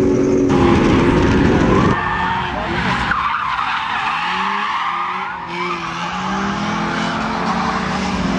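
Rear-wheel-drive Suzuki race car's engine held at high revs, heard from inside the cabin. About two seconds in, the sound switches to trackside: the engine rises and falls in pitch as the car is driven hard through the slalom, with tyres squealing in the turns.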